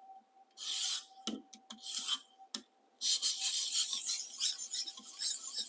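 A 400-grit sharpening stone on a guided sharpener stroking along a high-carbon stainless slicer blade with a rasping scrape, taking the burr off the flipped side. There are two short strokes, a small knock, then a quicker, near-continuous run of strokes from about halfway in.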